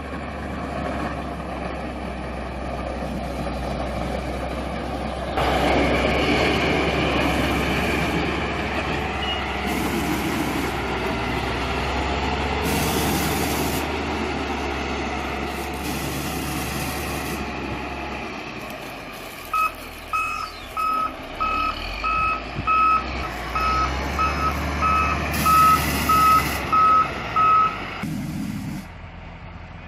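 Caterpillar 140K motor grader's diesel engine running under load as it works the gravel road, louder from about five seconds in. About two-thirds of the way through, its reversing alarm beeps about twice a second for some eight seconds, the sign that the grader is backing up.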